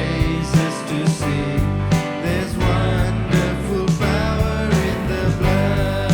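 Church worship band playing, with drums keeping a steady beat under bass and sustained instrument lines.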